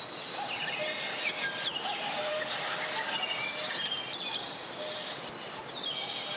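Valley stream flowing with a steady rushing sound, with birds calling over it in short whistled notes and a few quick falling sweeps.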